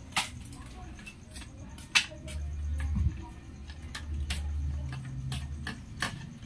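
Sharp metallic clicks and light ticks of a T-handle hex key working a motorcycle bolt: three strong clicks, the loudest about two seconds in, with smaller ticks between.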